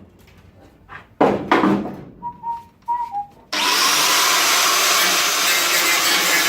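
Two sharp hammer blows on the car's steel bodywork, followed by a few lighter knocks with a brief metallic ring. About halfway through, a power tool starts abruptly and runs on steadily and loud, working the metal.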